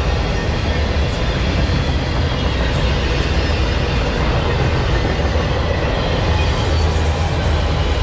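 Freight train cars rolling past on the rails, a loud, steady rumble of wheels and rail noise.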